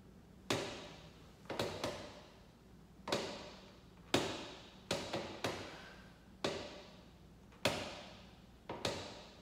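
A series of sharp knocks, about ten, irregularly spaced and some in quick pairs, each trailing off in room echo.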